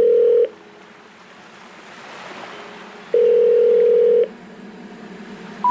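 Telephone tones. A steady low tone is held for about a second, twice, with faint hiss between. Near the end three short beeps step upward in pitch, the special information tone that comes before a "number not in service" recording.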